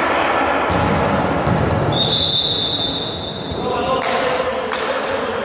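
Referee's whistle blown in one long steady note for nearly two seconds, about two seconds in, over the voices of players and spectators in a gym hall; the whistle signals the serve. A few dull thumps, like a ball bounced on the floor, come before and after it.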